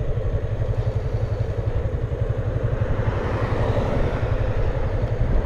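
Motorcycle engine running with a steady low pulsing throb, swelling a little about three seconds in.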